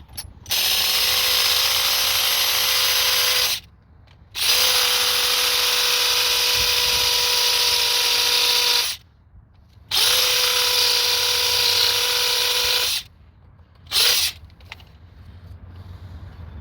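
Electric drill boring into a rusted-shut oxygen sensor bolt hole in the exhaust, with a bigger bit. It runs steadily in three long runs of a few seconds each with short pauses between, then gives one brief blip near the end.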